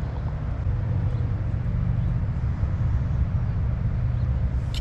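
Steady low rumble with no distinct sounds over it.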